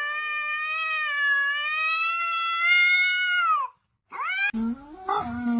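A ginger cat yowling at another cat: one long, drawn-out call of about four seconds that wavers slightly and drops away at the end. After a short gap comes a brief rising cry.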